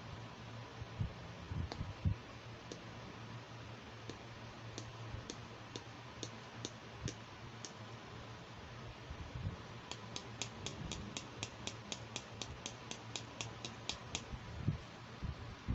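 Small hard plastic clicks as a toy doctor's caliper is handled. The clicks come scattered at first, then in a quick even run of about five a second for a few seconds near the end, with soft handling bumps.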